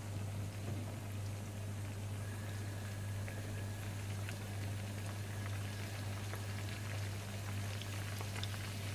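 Oil and a little water bubbling and sizzling in a small frying pan of green chillies, round dried red chillies, garlic and curry leaves: a baghar (tempering) frying, with small pops that come more often in the second half. A steady low hum runs underneath.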